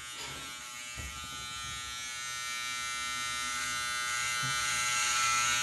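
Electric hair clippers buzzing steadily while trimming hair at the nape of the neck; the buzz grows gradually louder.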